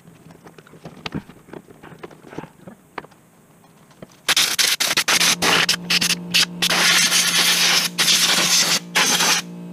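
Compressed-air blow gun blowing dirt off the top of an ATV engine: a loud hiss in repeated bursts with short gaps, starting about four seconds in after a few light clicks and knocks, with a steady low hum underneath.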